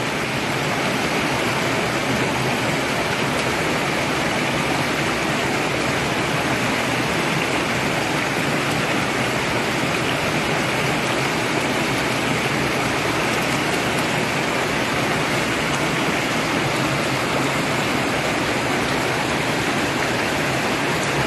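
Steady rushing of flowing water, an even unbroken hiss with no distinct splashes standing out.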